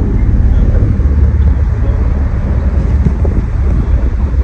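Steady low rumble of a moving car's road and engine noise.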